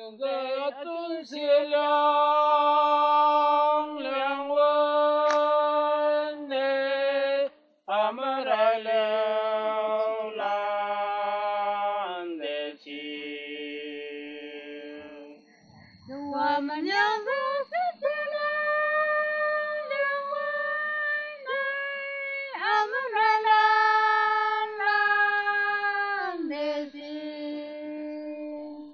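Unaccompanied singing of a slow traditional folk song, the voice holding long notes of a second or two and stepping between pitches, with a short pause about halfway through.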